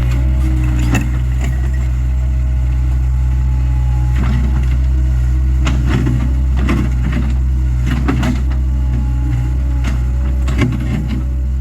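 Takeuchi TL26 skid steer's diesel engine running steadily under working load, with scattered sharp knocks and scrapes of rock against the bucket.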